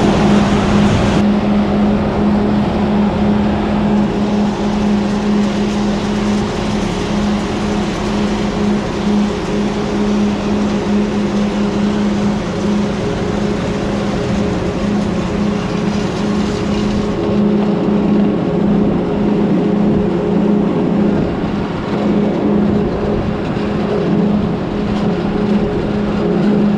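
A large engine running steadily at constant speed, with a strong, unchanging hum.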